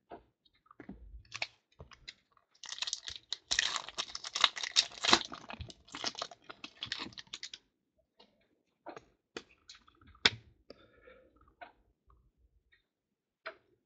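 Foil trading-card pack being torn open and crinkled in the hands: a dense run of crinkling for about five seconds, then scattered light clicks and taps as the cards inside are handled.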